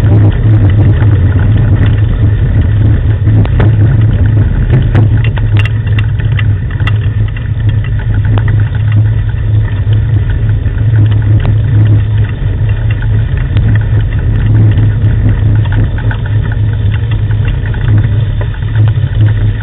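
Steady low hum and rumble of a dog-sled training rig being pulled over a gravel track, with a few sharp clicks and knocks about six seconds in.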